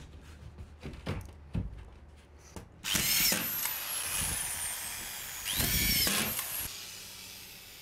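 Corded autofeed screw gun with collated screws driving self-tapping screws through plasterboard into metal GIB rails. A few light knocks come first. The motor whines up suddenly about three seconds in, falling in pitch as it runs, and a second short run drives another screw near the end.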